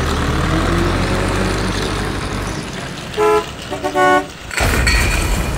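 A motor vehicle's engine rumbling, then its horn honking: one short honk, and a second later a run of quick toots, followed by a loud rushing noise near the end.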